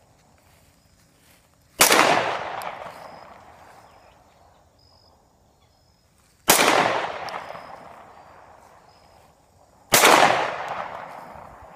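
Three single 9mm shots from a Glock 19 pistol, a few seconds apart. Each is a sharp crack followed by a long echo that fades over about two seconds.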